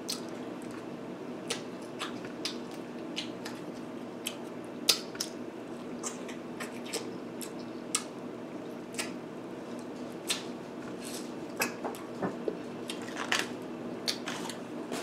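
Close-up eating sounds of a person chewing lobster claw meat: irregular small clicks, taps and mouth noises, with no speech, over a steady low hum.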